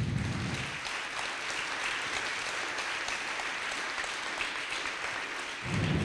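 Audience applauding steadily: many hands clapping at once, with a low-pitched swell near the end.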